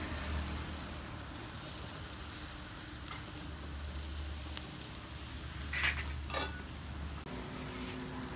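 Beef pieces sizzling on a wire grill grate over hot charcoal, a steady hiss. Two short clicks a little past halfway.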